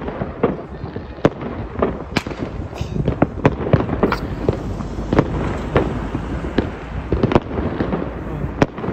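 Fireworks display going off: an irregular run of sharp bangs and crackles, several a second.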